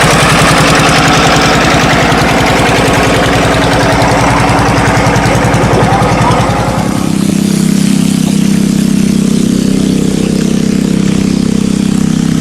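A small engine running close by, with a rapid steady pulse. About seven seconds in its note changes: the higher part fades and a lower, steady hum takes over.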